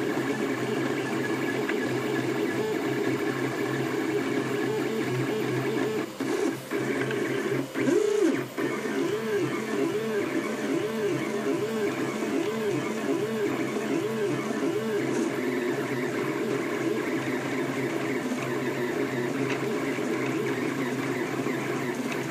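Home-built 3D printer running a print: its stepper motors whine as the print head moves back and forth, the pitch rising and falling with each move, in a regular run of sweeps about every half second midway through, over a steady hum.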